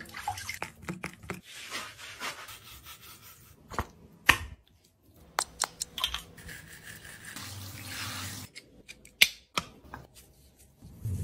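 Quiet pet-grooming handling sounds: light water movement in a bathtub and rubbing, with a few sharp clicks and taps of product tubes and containers being handled.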